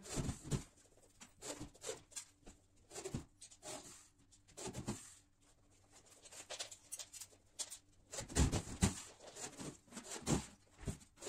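Scattered knocks and clatter, with a cluster of heavier thumps about eight seconds in, from a worker shifting and stepping on a metal stepladder and handling a corded drill while fixing gypsum board.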